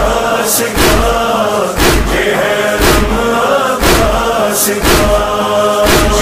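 Shia Muharram noha: a chorus of voices holding a chanted refrain between verses, over a thudding beat about once a second.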